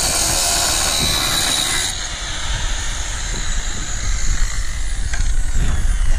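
Angle grinder with a cutting disc cutting through steel armour plate, a loud hissing screech that eases off about two seconds in. Near the end the whine falls in pitch.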